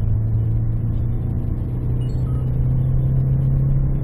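Ford Mondeo Mk4's 1.8 TDCi four-cylinder turbodiesel pulling hard under acceleration, heard from inside the cabin. Its drone rises steadily in pitch as the revs climb from about 3,000 to 4,000 rpm in one gear.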